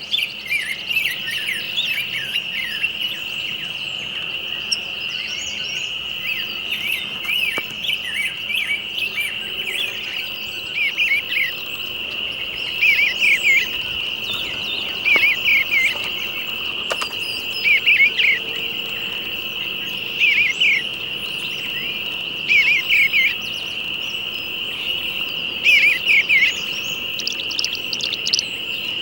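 A songbird singing short, repeated phrases about every two to three seconds, over a steady, unbroken high insect trill.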